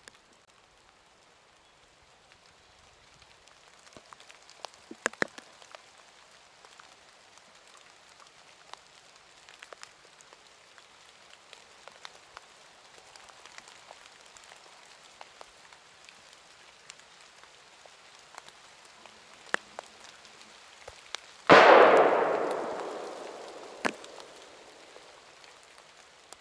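A .30-06 hunting rifle fires once, about three-quarters of the way in, its report echoing and dying away over about two seconds. Before it there are only faint scattered ticks and snaps.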